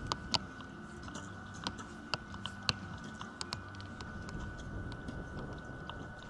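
Scattered sharp clicks and snaps at irregular intervals from recurve bows being shot along the shooting line, over a faint steady hum.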